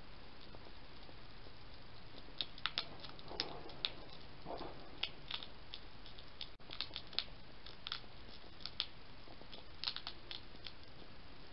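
European hedgehog crunching dry biscuit food from a bowl: irregular sharp crunches and chewing clicks that begin about two seconds in, over a steady hiss.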